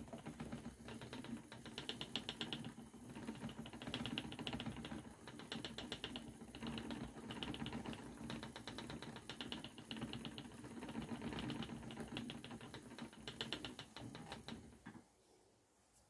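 Spinning wheel running as yarn is spun, a steady hum with repeated short runs of rapid clicking, which stops about a second before the end.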